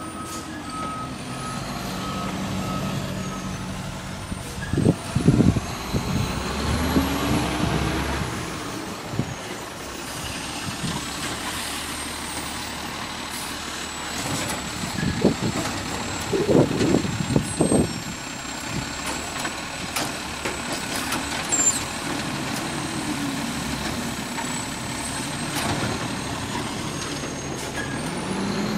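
Automated side-loader garbage truck running, its engine rising and falling in pitch as it works. There are loud clanks and bangs, likely a yard-waste cart being emptied, about five seconds in and again in a cluster about fifteen to eighteen seconds in.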